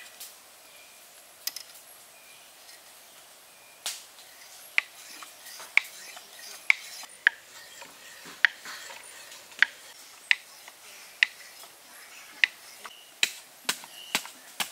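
Sharp clicks and knocks of bamboo parts, about one a second, as a small hand-made bamboo water-wheel model is fitted together and handled. Near the end, quicker strikes of a wooden stick digging into hard earth.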